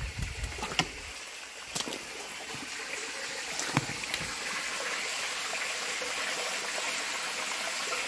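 Water trickling steadily out through a partly clogged corrugated metal culvert, a constant splashing hiss that grows slightly louder later on, with a few sharp clicks about one, two and four seconds in.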